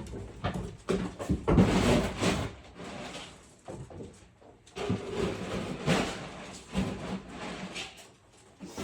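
Dog food being got out and dished up: rustling and scraping of a feed container and dry food, with scattered knocks, heaviest about a second and a half in and again around five to six seconds in.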